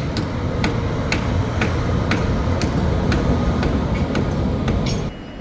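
Evenly spaced sharp knocks, about two a second, over a heavy low rumble, cutting off abruptly about five seconds in.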